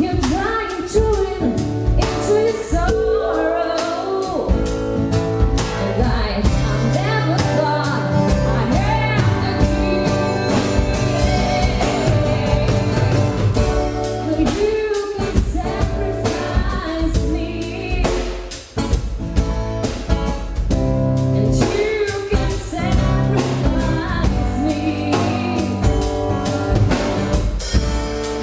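Pop song with singing, drums and bass playing loudly through a PA system during a sound check, with a short dip about two-thirds of the way through.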